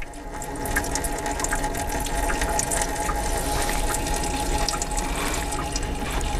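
Antifreeze pouring in a steady stream from a radiator's lower hose outlet into a catch bucket, a screwdriver wedged in the opening to help it drain.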